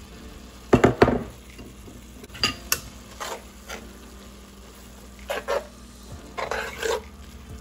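A cooking utensil scraping and knocking against a skillet as diced onion is stirred into browning ground beef, with a low sizzle under it. The strokes come in uneven bursts, the loudest two close together about a second in.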